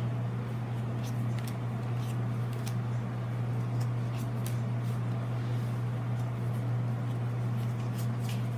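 Pokémon trading cards being flipped through one at a time by hand: light, scattered clicks and slides of card against card. Under them a steady low hum, the loudest sound throughout.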